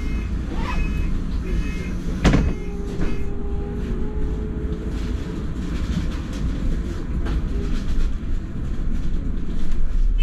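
Inside a London double-decker bus, the door-closing warning beeps repeat about once a second. The doors shut with a thud a couple of seconds in. A steady whine and the bus's low running rumble carry on.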